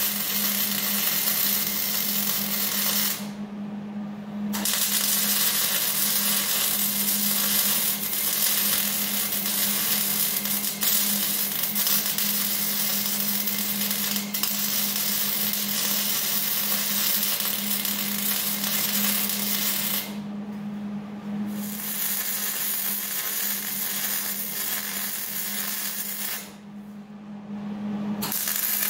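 Electric arc welding of a steel transmission mount onto the frame rails: a steady sizzling hiss over a constant low hum. The arc stops briefly three times, about 3 s in, about 20 s in and near the end, while the hum goes on.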